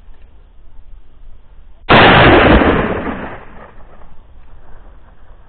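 A single very loud gunshot from a hunting gun fired at a wild boar, about two seconds in, its echo rolling away over a second or so.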